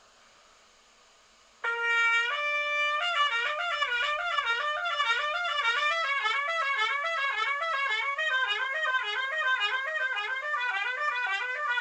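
Trumpet playing fast lip slurs, a lip-flexibility exercise, slurring rapidly up and down between neighbouring partials at about 105 beats per minute in sixteenth notes. It starts about a second and a half in with two short held notes, then runs into the quick up-and-down pattern.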